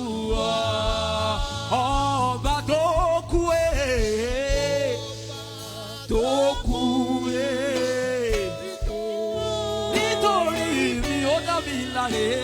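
Gospel worship music: a solo voice sings long, wavering melodic lines with vibrato and no clear words, over a steady bass accompaniment.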